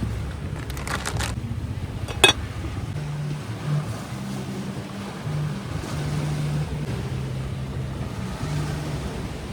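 Wind buffeting the microphone, with a low rumble, a few light clicks about a second in and one sharp click a little after two seconds.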